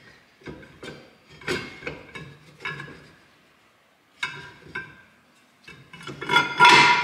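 Rear brake drum of a Fox-body Ford Mustang being worked by hand onto the hub over the shoes, clinking and clanking in a string of short metallic knocks with a brief ring. A louder cluster of clanks comes near the end.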